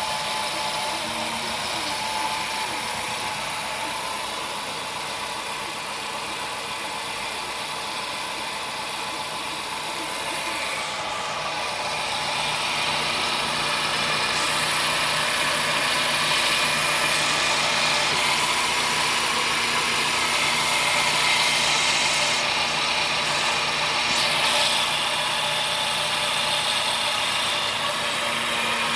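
Car engine running with an unusual noise over a steady low hum, the noise getting louder about halfway through; the noise began after the car was driven through a flooded street.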